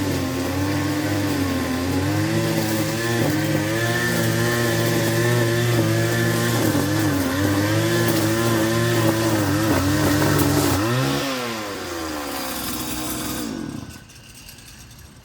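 Lawn mower engine running at working speed with its pitch wavering under load. About eleven seconds in the engine speed falls away and it runs slower and quieter, then the sound stops abruptly near the end.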